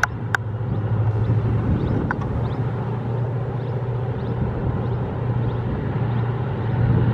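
Diesel locomotive hauling a tanker freight train, its engine running as a steady low drone heard from a distance. Two sharp clicks sound at the very start.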